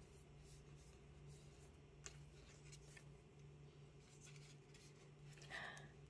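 Faint rustling and light ticks of a paperboard gift box being opened by hand as its lid is lifted and inner paper flaps are folded back. A slightly louder rustle comes near the end, over a faint steady hum.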